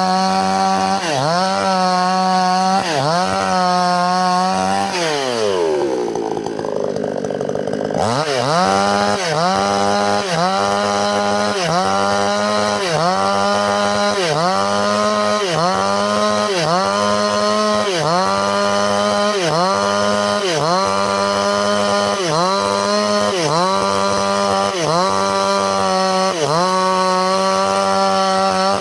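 Two-stroke chainsaw running at high revs while cutting wood, its engine pitch sagging and recovering about once a second. About five seconds in, the revs fall away to a low pitch, then climb back up near the eight-second mark.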